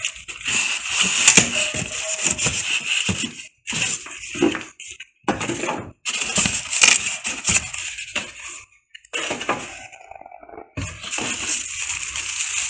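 Plastic wrapping and bags crinkling while styrofoam packing and cardboard are handled during the unboxing of a printer. It comes in bursts with a few short pauses, the longest near the end.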